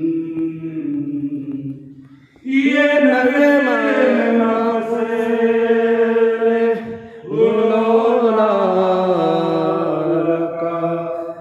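Islamic devotional chanting (zikr): a voice singing long, drawn-out phrases with sliding pitch. The voice pauses for breath about two seconds in and again about seven seconds in before starting a new phrase.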